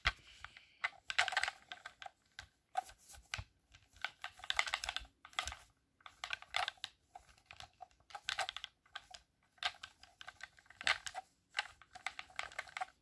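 Buttons and sticks of a wired game controller clicking, mashed rapidly in irregular bursts with short pauses between.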